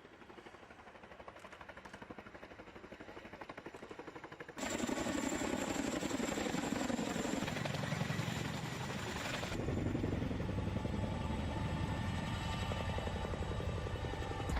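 Boeing CH-47 Chinook tandem-rotor helicopter: the rapid, even chop of its rotor blades, with a thin high whine. It grows louder, then jumps abruptly louder about four and a half seconds in and turns deeper and heavier about nine and a half seconds in.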